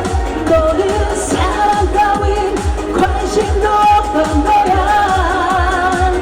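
Trot song performed live through a PA: a singer's melody with vibrato over a backing track with a steady kick-drum beat.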